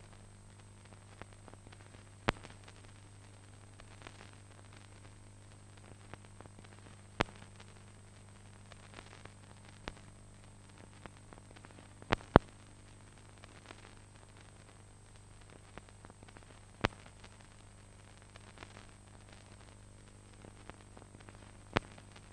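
Surface noise of an old film soundtrack: a steady low hum and faint hiss, with a sharp pop or click every few seconds. Two of the pops come close together about twelve seconds in and are the loudest.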